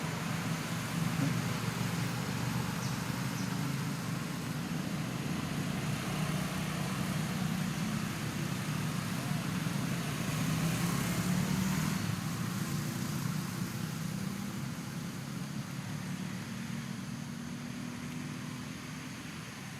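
A motor vehicle's engine running steadily, swelling a little midway and easing off towards the end.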